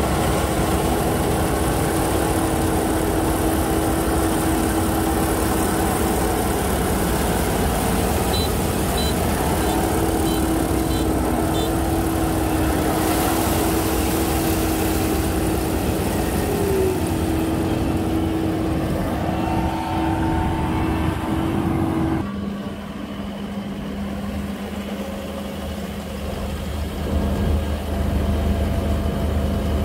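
Kubota crawler combine harvester running while harvesting rice, its diesel engine and threshing machinery making a steady, loud mechanical drone. About two-thirds of the way through, the sound drops suddenly to a lower-pitched, quieter hum.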